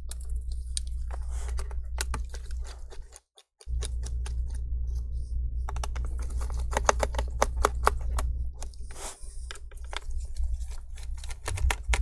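Phillips PH0 screwdriver clicking and ticking as it turns out the screws of a laptop's bottom cover: many small, irregular clicks over a steady low hum.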